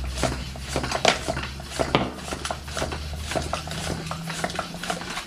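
Irregular light clicks and knocks, a few a second, from hands working a tubeless mountain-bike tire and its bead on the wheel rim, over a steady low hum.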